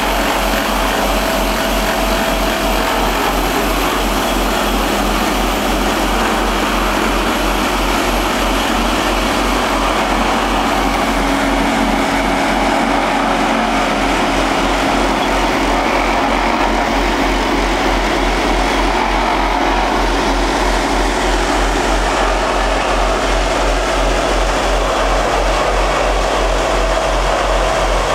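Diesel engines of heavy road machinery, a John Deere 772D motor grader and a Dynapac CC-422 vibratory roller, running steadily as they spread and compact fresh gravel, with a steady low throb underneath.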